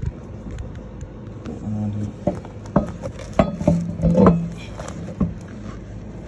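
A 26-inch alloy wheel knocking and clunking against the hub studs and rotor as it is worked onto a Chevy Avalanche's front hub. There are several irregular sharp knocks over about three seconds, the loudest about four seconds in.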